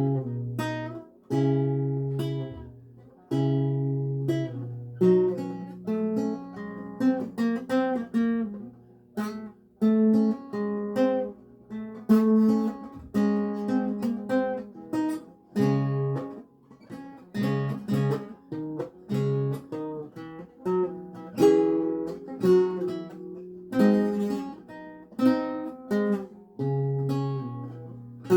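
A seven-course Renaissance lute tuned to A=415 Hz, played solo. Plucked chords and single notes run over low bass notes, each note ringing out and fading after the pluck.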